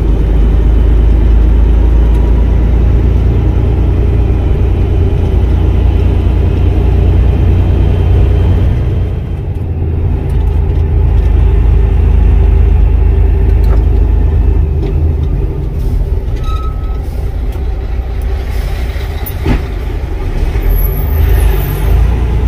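Tractor-trailer's diesel engine running steadily under way, heard from inside the cab as a deep rumble with road noise. The engine eases off briefly about nine seconds in, and there is one sharp click near the end.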